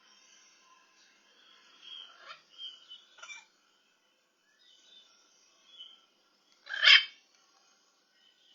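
Pet parrots chirping and whistling softly, then one short, loud squawk about seven seconds in.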